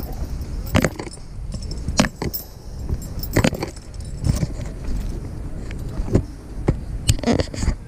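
Irregular clinks and knocks from fishing tackle and gear being handled, about one a second, over a steady low rumble.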